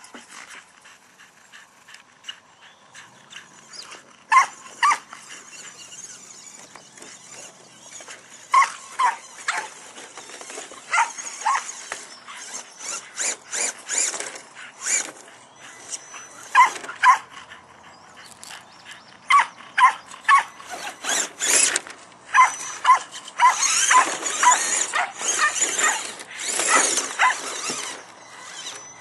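Dogs barking over and over, mostly in quick pairs, more often in the last several seconds. Under the barks runs a scraping, crunching noise that fits an RC rock crawler working over rocks.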